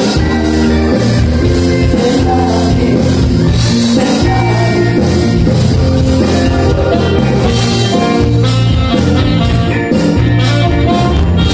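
A live band playing a song, loud and continuous.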